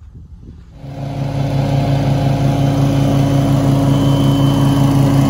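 Toro TimeMaster 30-inch walk-behind mower's Briggs & Stratton engine running at a steady speed. It comes in abruptly about a second in and holds one even hum.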